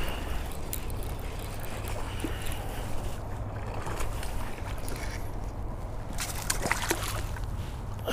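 Water splashing and sloshing in the shallows as a hooked largemouth bass thrashes at the shoreline and is landed by hand, with a few sharper splashes near the end. A steady low rumble of jacket fabric rubbing over the microphone runs beneath it.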